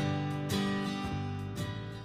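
Background music, with a new chord struck about half a second in.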